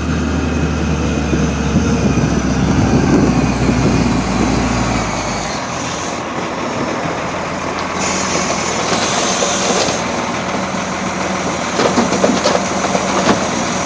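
Wheel loader's diesel engine running as it carries and raises a full bucket of wood chips, its note changing about five and a half seconds in. Near the end, a few thuds as the mulch tips out of the bucket into a pickup's bed.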